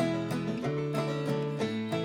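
Background music: plucked string instruments playing a quick, bright tune.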